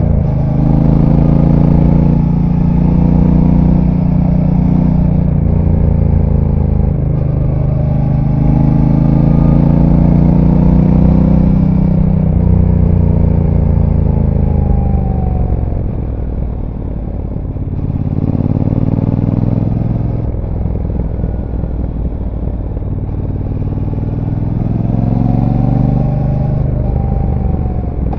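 Brixton Cromwell 1200's parallel-twin engine through its stock exhaust, heard from on board while riding: it accelerates and backs off again and again, the engine note climbing and falling about four times over the half-minute.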